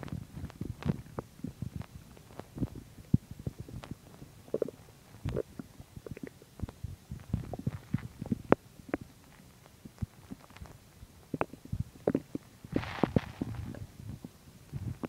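A human stomach and intestines gurgling while digesting a meal of chicken and milk: irregular short pops and bubbling gurgles, with a brief squeaky gurgle about four and a half seconds in and a louder rush of sound about thirteen seconds in.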